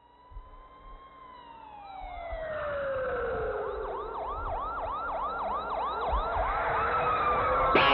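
Siren-like sound effect building in loudness and muffled as if filtered: one long falling glide, then a quick up-and-down wail that repeats about twice a second. Near the end it opens into full rock music with distorted electric guitar.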